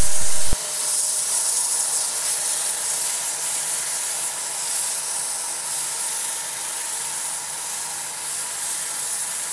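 Steady high-pitched hiss with no clear beat or pitch, preceded by a short click about half a second in.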